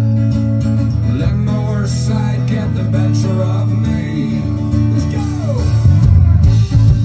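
Live folk-rock band playing: a strummed acoustic guitar with fiddle and a bass line, the low end getting louder about six seconds in.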